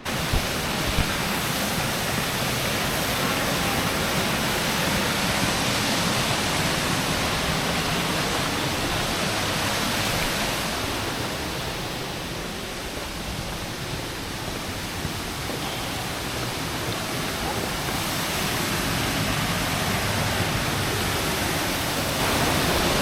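Steady roar of Huangguoshu Waterfall, an even rushing of falling water; it eases a little for a few seconds about halfway through.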